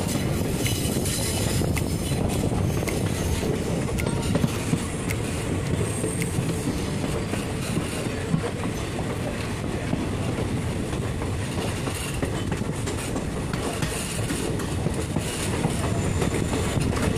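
Passenger train running along the track, heard from a coach window: a steady rumble of steel wheels on the rails with a few sharp clicks over rail joints.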